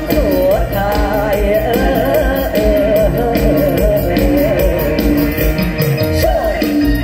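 Mor lam song performed by male singers through microphones, their voices wavering with vibrato over amplified backing music with a steady drum beat.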